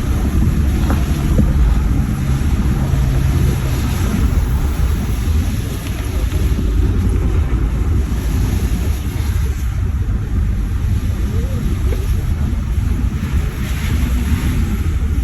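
Vehicle being driven through a thunderstorm: a steady low rumble of the engine and road, with the rushing noise of rain and wind over it.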